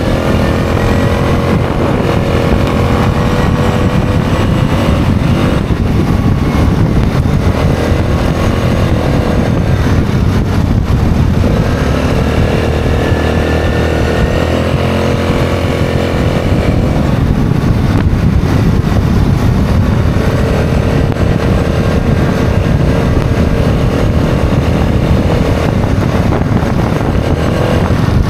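ATV engine running under way on a gravel trail, its note rising and falling several times as the throttle is worked, over a low rumble.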